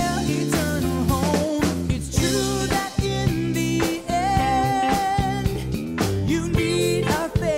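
Upbeat pop-style children's worship song with a sung lead vocal over a drum-kit beat. The sung lines are "can't make it on their own to their eternal home" and "it's true that in the end you need a famous friend".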